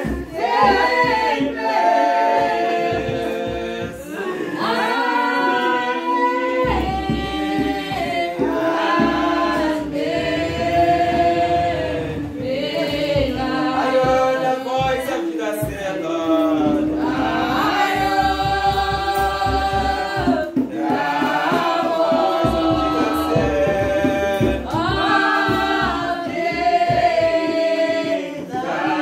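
A church congregation singing a hymn together, many voices holding long, drawn-out notes.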